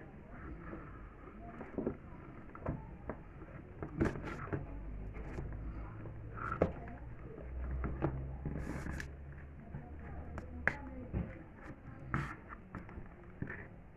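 Irregular clicks and knocks of fan parts being handled and set down, about one a second, over a faint low rumble.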